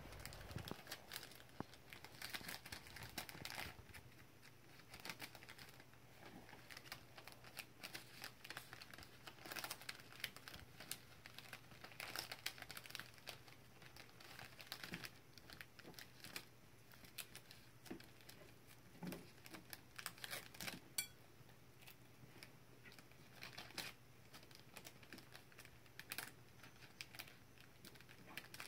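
Small clear plastic bags crinkling faintly in irregular crackles as small hands handle them and slip tea bags inside.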